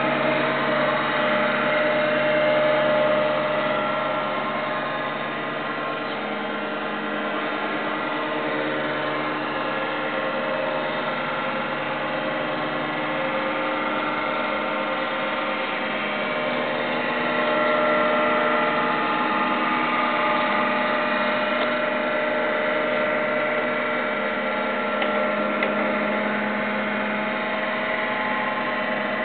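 Heidelberg ChromaGraph S3400 drum scanner running a prescan with its small drum spinning empty, no film mounted. It makes a steady machine hum of several held tones that shift a little a few seconds in and again about halfway through.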